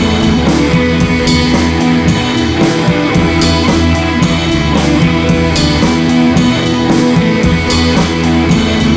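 Background music: a rock track with guitar and drums, playing steadily.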